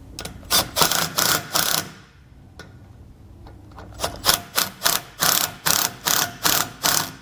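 Cordless impact driver with an 8 mm socket hammering mounting screws tight, in two bursts of rapid impacts with a pause of about two seconds between.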